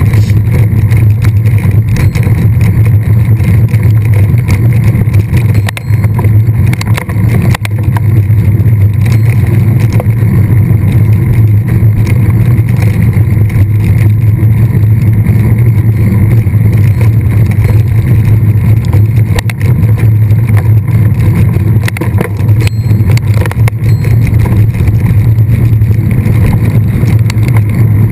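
Steady wind and riding rumble on the microphone of a camera carried on a mountain bike in motion, with scattered small clicks and rattles.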